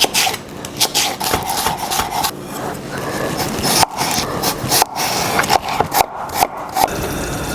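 Salted steak searing in a hot pan: a steady crackling sizzle with scraping sounds.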